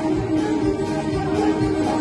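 Irish traditional dance music with a steady beat, played for set dancing.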